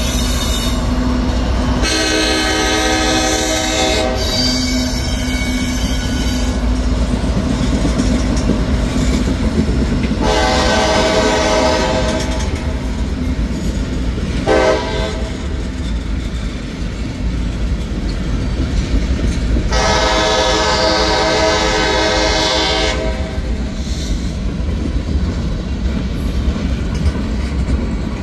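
CSX freight train's locomotive air horn sounding a run of long blasts with one short blast near the middle, the grade-crossing signal. Underneath is the steady rumble and clatter of the heavy train rolling past: locomotives and then tank cars.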